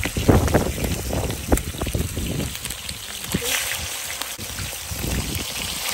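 Chicken wings frying in hot oil in a large steel pan: a steady sizzle with crackles and pops, thickest in the first half.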